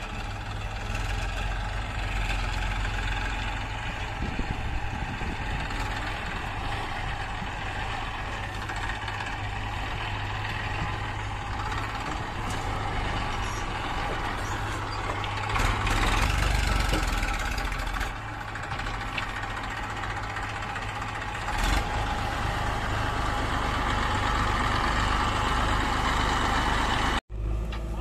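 Massey Ferguson tractor's diesel engine running steadily as it pulls a trolley loaded with soil, growing louder a little past the middle as it comes close.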